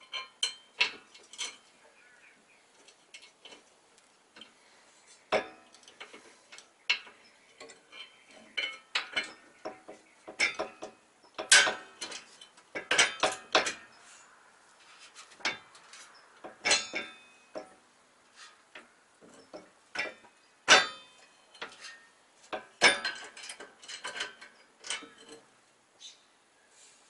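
Irregular metallic clinks and taps of hand tools and hardware against a metal front lower crossbar being fitted under a car, with quick bursts of clicks at times.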